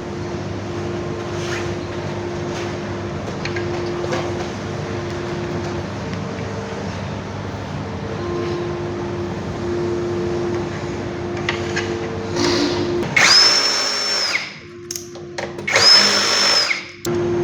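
Electric screwdriver run twice in short bursts of about a second and a half, each winding up and down, driving the bolts that fasten the cell connectors to the battery terminals. A steady low hum runs underneath.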